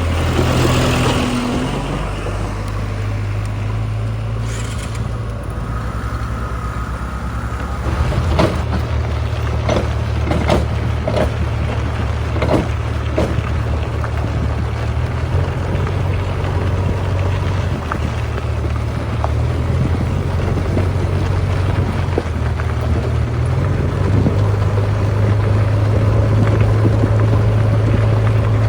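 Diesel engine of a JCB 3DX backhoe loader running steadily while it loads mud. The engine note shifts about eight seconds in, when a run of sharp knocks and clunks begins for several seconds, and it picks up again near the end.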